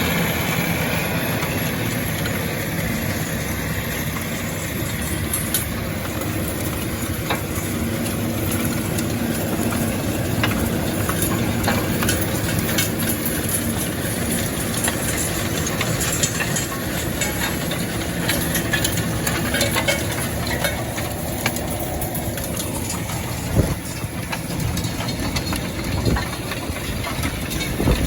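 Farm vehicle engine running steadily, with one brief knock about three-quarters of the way through.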